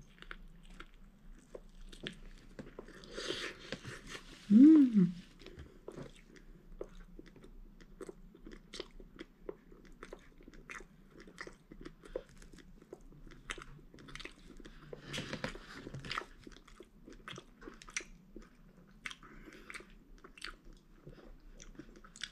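Close-miked biting and chewing of a pork bun with coleslaw: many small wet mouth clicks and smacks. About five seconds in comes a short hum that rises and falls in pitch, the loudest sound.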